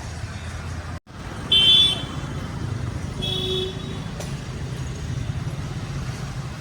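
A car engine idling steadily, with a brief break in the sound about a second in, then two short car horn beeps, the first louder than the second.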